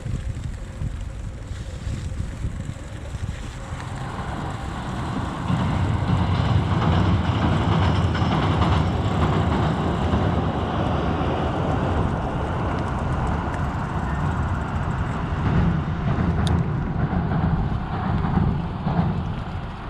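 Steady rumble of passing vehicle traffic, swelling about five seconds in and holding until near the end.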